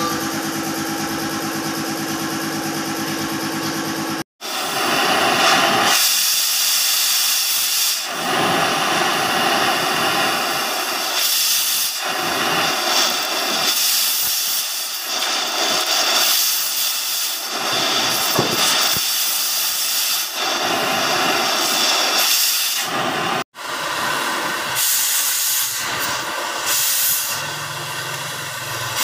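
Oxy-fuel heating torch hissing as its flame heats the tie-rod eye of a backhoe's steering knuckle. The hiss surges and eases, with two abrupt cuts, about four seconds in and again near the end; before the first cut a steady hum with one held tone is heard instead.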